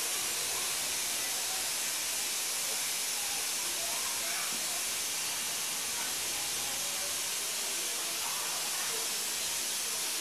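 A steady hiss at an even level, with faint voices in the background now and then.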